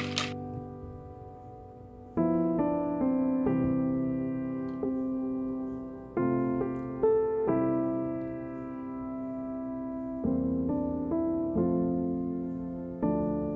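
Background piano music: slow, calm chords, each struck and left to fade before the next.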